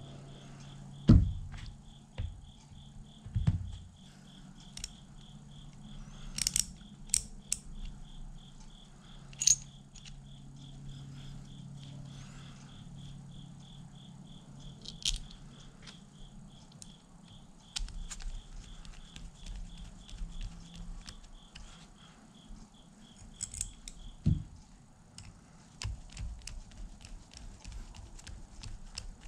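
Small metal ratchet parts and hand tools handled on a cloth-covered workbench while a Plomb 3/8-drive ratchet head is put back together: scattered light metallic clinks and clicks, with a loud thump about a second in and another a couple of seconds later. A faint, fast ticking, about three a second, runs under it and stops about four-fifths of the way through.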